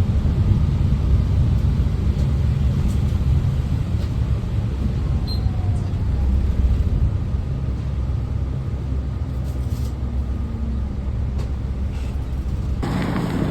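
City bus running, heard from inside: a steady low engine and road rumble. A rushing hiss joins near the end.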